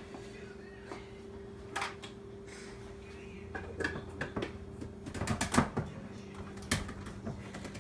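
Cups and containers handled on a kitchen counter: scattered knocks and clicks, few at first and busiest in the second half, over a faint steady hum.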